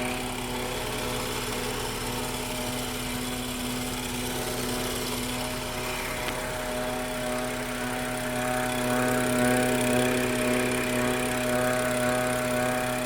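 BMW N55 turbocharged inline-six with the M Performance Power Kit, running steadily at idle with a constant whine over the engine note.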